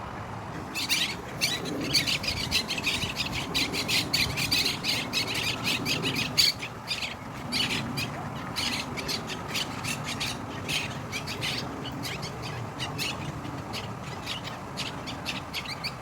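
A group of green parakeets calling: a rapid, dense stream of short, harsh squawks that starts about a second in and thins out somewhat in the second half.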